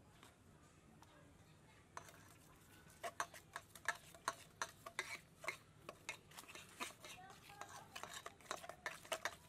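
A metal utensil stirring and beating raw egg mixture in a stainless steel bowl, clinking against the bowl's sides in quick, irregular strokes that begin about two seconds in and grow busier toward the end.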